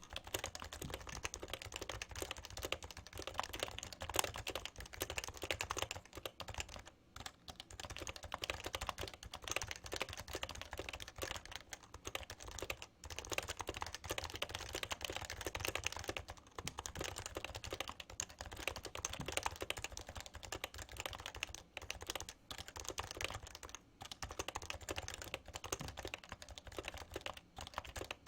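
Fast, continuous typing on a Happy Hacking Keyboard Professional with Topre capacitive key switches, a dense stream of key strokes broken by a few short pauses.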